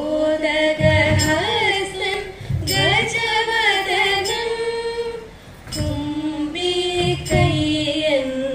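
Women singing a Thiruvathira song together without instruments, through a PA: long sung phrases with gliding, ornamented pitch and a short break about five seconds in. A few sharp beats sound under the singing.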